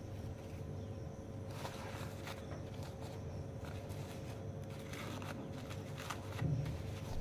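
Paper towel rustling and crinkling, with light knocks, as a toasted sandwich is handled into a paper-lined steel lunch box. Irregular handling noises start about a second and a half in, over a steady low hum.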